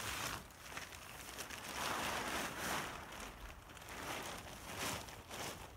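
Plastic tarp rustling and crinkling as it is pulled and gathered by hand, in uneven surges with small crackles, loudest about two to three seconds in.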